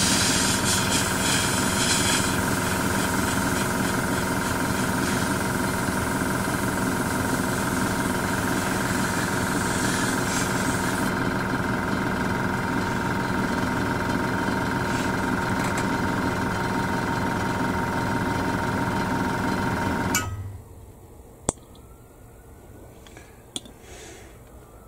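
Small airbrush compressor running with a steady motor hum, while the airbrush hisses as it sprays paint, the hiss strongest at first and fading out about halfway through. The compressor shuts off suddenly about four-fifths of the way in, followed by a couple of light clicks.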